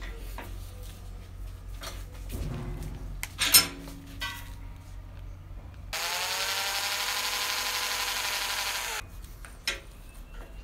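Cordless drill spinning up and boring into a small wooden block held in a bench vise, running at a steady whine for about three seconds from midway, then winding down. Before it, knocks and one sharp clank as the block is handled in the steel vise.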